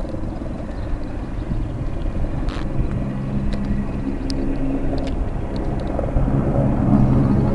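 Firefighting helicopter's engine and rotor drone, a steady low hum that grows louder over the last few seconds as it approaches.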